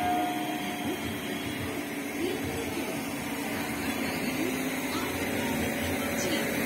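ICF Medha electric multiple unit moving slowly along the platform: a steady electric hum from its traction equipment with short whining pitch glides, growing a little louder toward the end. A faint tail of its horn fades out in the first second.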